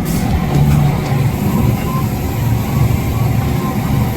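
Vehicle engine running, a steady low rumble.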